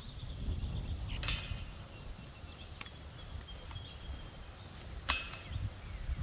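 Two disc golf putts striking the chains of a disc golf basket, one about a second in and one near the end. Each is a short, sharp metallic clash with a brief ringing tail.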